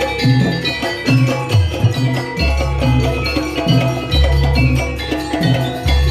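Jaranan gamelan music: metallophones and drums playing a busy rhythm, with deep low notes coming back about every two seconds.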